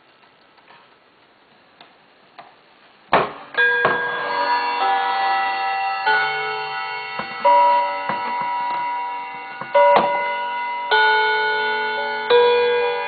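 Mantel clock ticking faintly, then about three seconds in its chime begins: a slow melody of struck notes that ring on and overlap one another.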